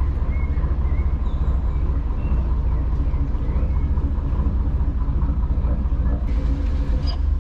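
A Dutch barge's engine running steadily, a deep, even hum.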